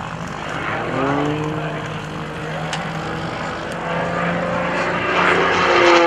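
Single-engine MXS aerobatic monoplane's propeller engine running hard through a manoeuvre; the pitch rises about a second in, and near the end the engine gets louder and its pitch starts to fall as the plane passes.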